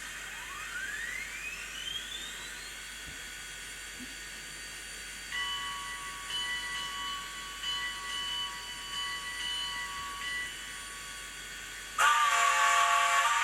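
ESU LokSound 5 sound decoder in an HO scale Rivarossi Heisler steam locomotive playing its steam sounds through the model's small speaker: a steady hiss, a tone sweeping upward in the first few seconds, then several seconds of thin held tones switching on and off. About twelve seconds in, a much louder whistle blast starts.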